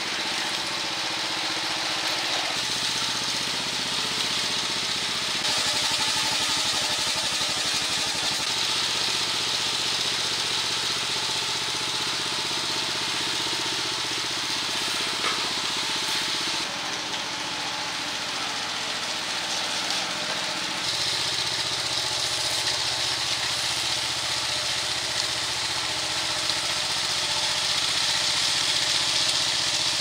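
Small gas engine of a walk-behind power trowel running steadily as its spinning blades finish a freshly poured concrete slab. Its tone changes abruptly several times.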